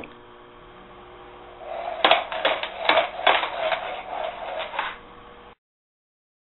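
Dice clattering and clicking inside a plastic cup as it is slid across a laminate countertop, scooping them up one after another to stack them, with a scraping rub from the cup on the counter. A quick run of sharp rattles over about three seconds.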